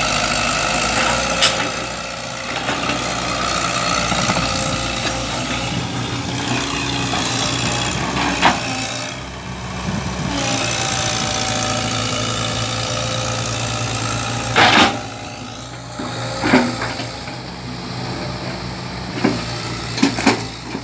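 Kobelco hydraulic crawler excavator's diesel engine running steadily as the machine works itself out of deep mud, with several sharp knocks and clanks from the arm, bucket and tracks.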